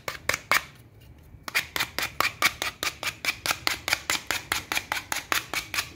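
Sandpaper rubbed quickly back and forth over the cut end of a black semi-rigid plastic water hose, about five strokes a second, with a short pause about a second in. It is deburring the freshly cut edge.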